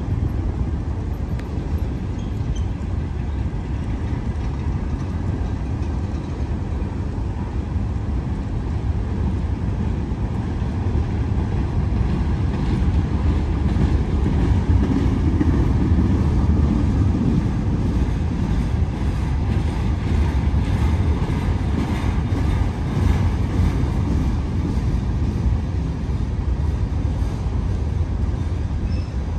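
Long CSX freight train's cars rolling past: a steady rumble of steel wheels on rail that grows a little louder midway.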